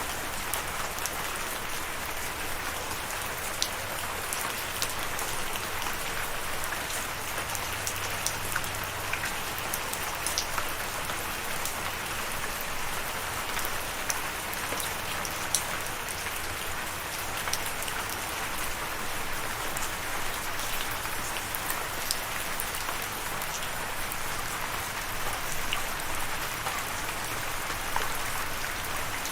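Steady rain falling, a constant hiss with many sharp individual drops ticking on a hard surface.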